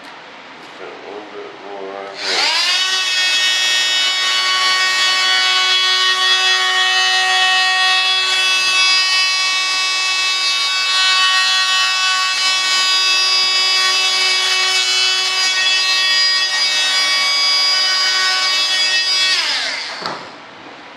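Small handheld electric power tool spinning up to a high, steady whine about two seconds in, running at constant speed for around seventeen seconds, then winding down and stopping near the end.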